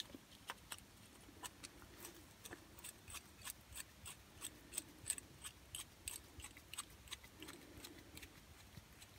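Faint, irregular clicking of a screwdriver turning the adjuster screw back into an LHP16 mower carburettor, a few small ticks a second.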